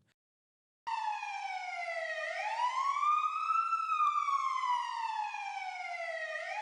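Emergency siren wailing, its pitch sliding slowly down and up in long sweeps of a few seconds each. It starts about a second in.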